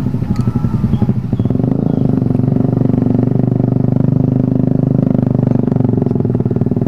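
Motorcycle engine idling close by, a steady sound with a fast even pulse.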